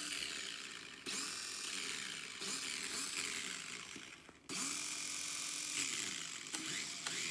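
Team Associated SC28 1/28-scale RC short course truck's small electric motor and gears whirring in several spurts of throttle, the pitch of the whine rising and falling with each burst.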